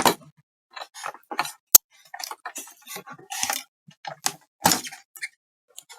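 Irregular small clicks and plastic knocks as cable connector plugs with press catches are worked loose from a soundbar's audio board, with one sharp snap about two seconds in.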